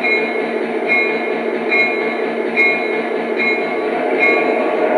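Sound system of a 3rd Rail O-scale Krauss-Maffei ML-4000 diesel-hydraulic model locomotive playing its diesel engine sound as the locomotive moves off. A bell sound rings about once a second over the engine.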